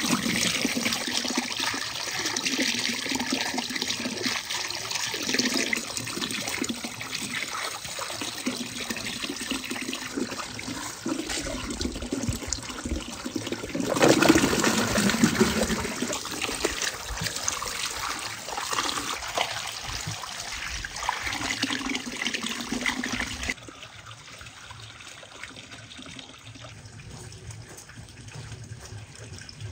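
Water splashing and trickling as apricots are washed by hand in a basin of water, with water poured in over them. A louder stretch comes about halfway through, and the sound drops to a faint background for the last several seconds.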